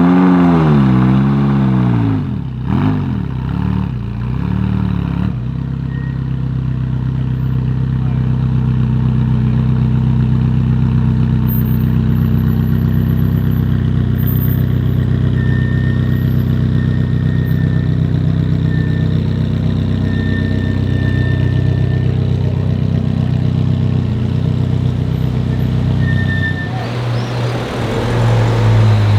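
Ferrari supercar engine blipped several times in the first few seconds, revs rising and falling sharply, then settling into a steady idle for about twenty seconds. Near the end the note changes again and grows louder.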